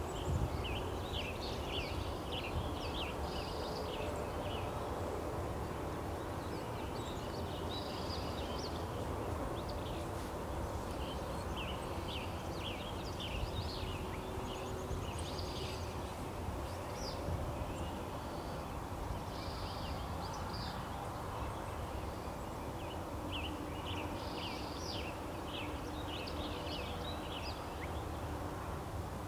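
Small birds chirping, in clusters of quick high notes every few seconds, over a steady low outdoor rumble.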